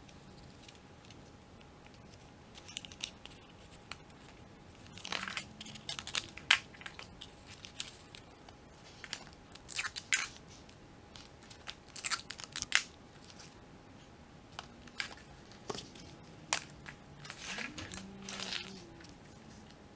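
Sheets and rolled tubes of paper being handled: irregular rustling and crinkling, with scattered sharp clicks and light taps as the tubes are put down on a wooden table.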